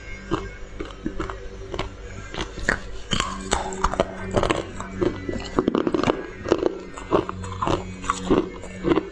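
Thin sheet of frozen flavoured ice being bitten and chewed: rapid, crisp cracks and crunches, coming thicker in the second half, over a steady low hum.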